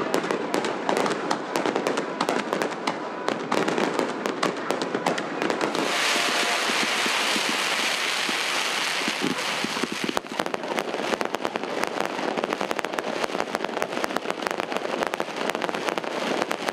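Fireworks display: aerial shells bursting in quick succession with sharp bangs and crackling. A steady hissing stretch runs from about six to ten seconds in, then the bangs and crackles resume.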